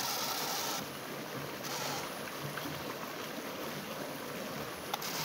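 Steady rushing of stream water flowing past, an even hiss with a single faint click near the end.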